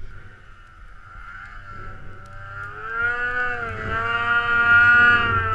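Snowmobile engine running, its steady note growing louder from about two seconds in as a sled comes up close, with a brief dip in pitch about four seconds in as the throttle eases.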